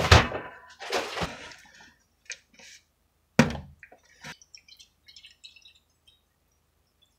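Knocks and thumps of containers being handled and set down on a tabletop, the loudest about three and a half seconds in. Faint small drips and splashes of water follow.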